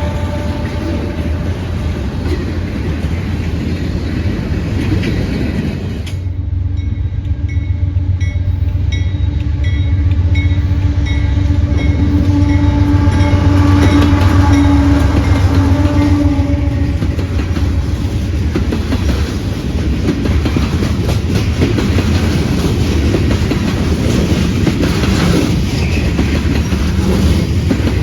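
A train passing, with a steady low locomotive drone and wheels clicking over rail joints, the clatter growing denser in the second half. The sound changes abruptly about six seconds in.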